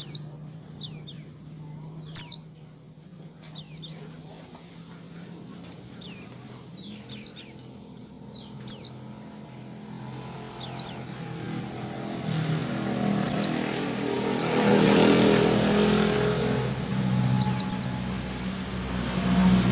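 A caged white-eye (pleci) giving its short 'ngecal' calls, the warm-up it makes before breaking into full song: sharp, high chirps that slide downward, often in quick pairs, every second or two. A low steady hum lies beneath, and a rushing background noise swells in the second half and eases off near the end.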